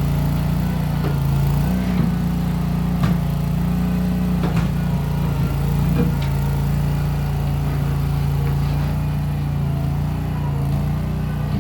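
Case 1816 skid steer's engine running steadily at working speed, its pitch shifting slightly a few times. A few sharp knocks stand out in the first half.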